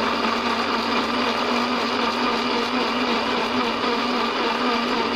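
Miyako countertop blender motor running steadily at speed, pureeing chillies, shallots and garlic into a paste.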